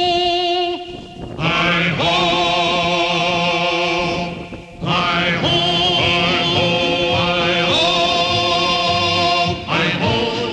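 Soundtrack music with long, wordless sung notes held with vibrato. It breaks off briefly about a second in and again at about four and a half seconds.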